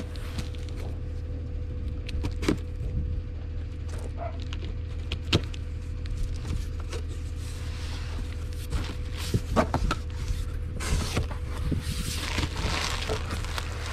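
A cardboard shipping box is opened by hand: its taped flaps are worked loose and pulled back with scraping and rustling, and a few sharp knocks sound along the way. A steady low hum runs underneath.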